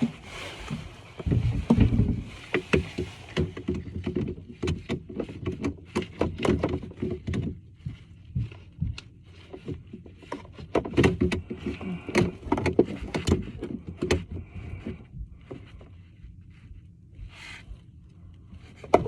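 Irregular clicks, knocks and scraping in clusters as hand tools and parts are worked on a bathtub drain and overflow assembly, quieter near the end.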